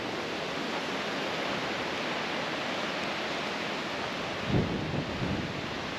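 Wind outdoors: a steady rushing hiss, with two short low buffets on the microphone about four and a half and five seconds in.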